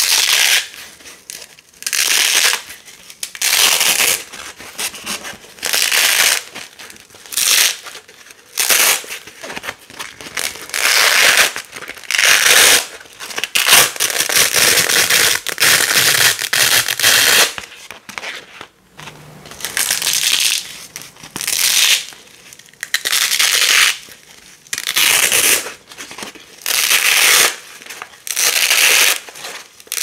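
Wide black hook-and-loop (Velcro) tape being pulled apart by hand from the side, again and again: crisp, crunchy tearing rips about every one to two seconds. The rips are longer and drawn out for a stretch midway.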